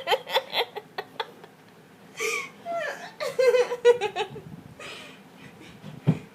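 A girl laughing helplessly in short bursts and gasps, broken by hiccups, with a pitched run of laugh syllables about three seconds in.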